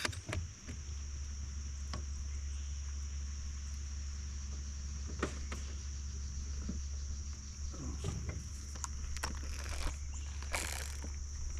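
Insects chirping in a steady high-pitched drone, over a low steady hum, with a few faint scattered clicks.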